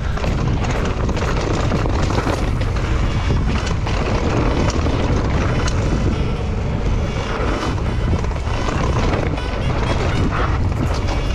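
Mountain bike descending a rocky trail at speed, with wind rushing over the camera microphone and tyres rumbling over dirt and stones. Frequent sharp rattles and clicks come from the bike over the bumps.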